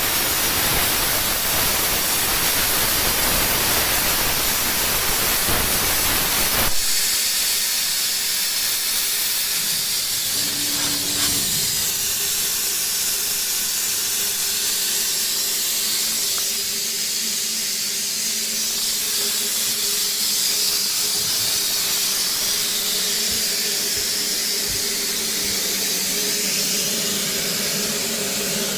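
Plasma cutting torch hissing steadily as its air jet blows. About seven seconds in the sound changes abruptly: the low rumble drops away, leaving a high hiss over a faint steady hum.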